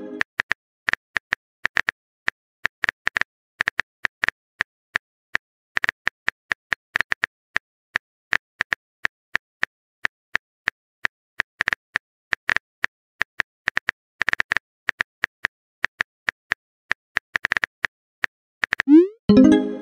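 Phone keyboard typing sound effect: quick, irregular taps, several a second, as a text message is typed. Near the end a louder short pop with a rising tone, the sound of a message being sent.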